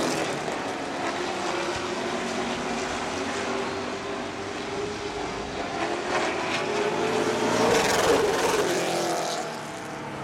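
Late model stock car V8 engines running at racing speed around a short oval. Their engine note swells and bends down in pitch as cars pass close about eight seconds in, then fades near the end.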